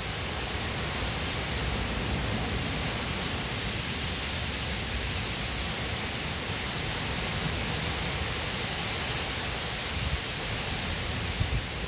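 Heavy rain pouring steadily onto pavement and parked cars, a dense even hiss. A few low thumps come near the end.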